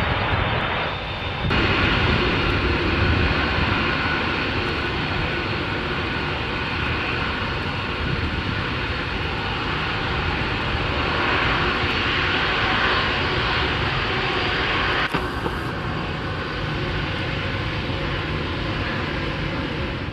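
Airbus A380-861's four Engine Alliance GP7200 turbofans running at taxi power as the jet moves and turns onto the runway: a steady jet roar that steps up about a second and a half in and eases slightly about fifteen seconds in.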